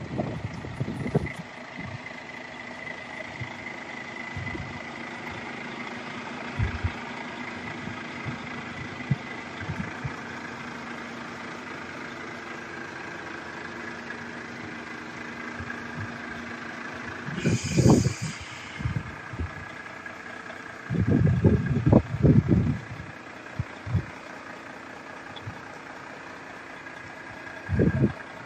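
Heavy diesel truck engine idling steadily, with the wind buffeting the microphone in several gusts, the loudest about two thirds of the way through and near the end.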